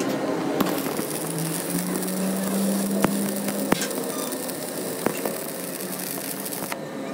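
Stick (arc) welding on the end of a broken truck axle shaft, building it up with weld: a steady crackling hiss with scattered sharp pops. A low steady hum runs under it from about one to three seconds in.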